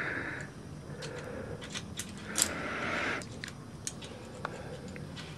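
Metal carabiners clinking against a via ferrata's steel safety cable as a climber clips on, a scatter of short sharp clicks.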